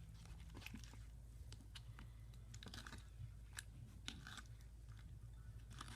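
Faint, irregular sticky clicks and squelches of wet slime being mixed.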